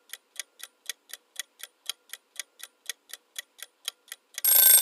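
Countdown timer sound effect: a clock ticking evenly, about four ticks a second, then a little over four seconds in a bell starts ringing loudly to signal that time is up.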